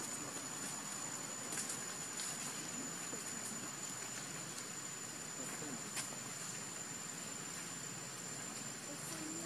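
Steady outdoor background hiss with a thin, unbroken high-pitched tone and a few faint clicks.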